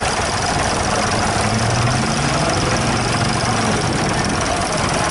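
Vintage Fordson Model N tractor's four-cylinder side-valve engine running steadily at idle.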